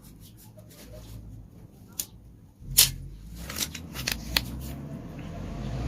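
Engine parts being handled during a motorcycle engine teardown: a few sharp clicks and taps, the loudest a little under three seconds in, then a quick run of smaller ones.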